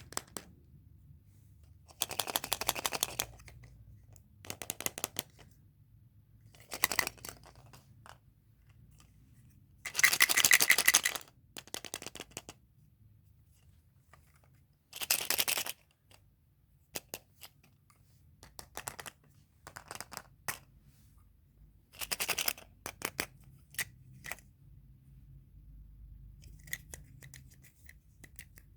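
Candy packaging being handled and unwrapped: several bursts of crinkling and rustling, the loudest about ten seconds in, with scattered small clicks and crackles between.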